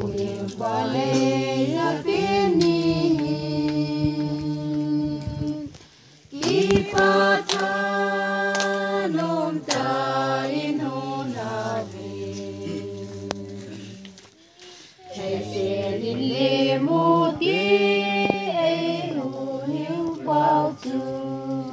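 A group of women singing together, holding long notes in three phrases with short breaks about six and fourteen seconds in.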